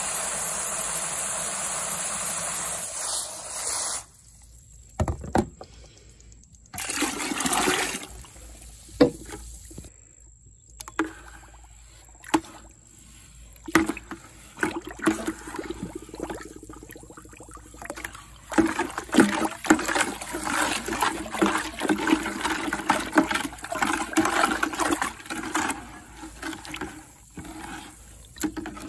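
Garden hose spray nozzle running water into a plastic pitcher of sugar, cutting off suddenly about four seconds in. Then sugar syrup being stirred in a plastic bucket with a length of pipe, sloshing with irregular knocks.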